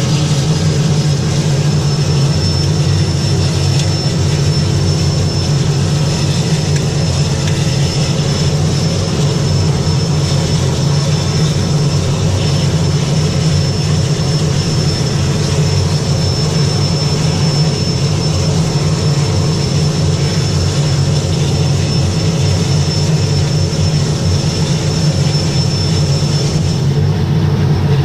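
Air Tractor 402B's Pratt & Whitney PT6A turboprop running steadily on the ground, heard from inside the cockpit. It makes a deep propeller hum under a thin, high turbine whine that rises slightly about a second in and then holds.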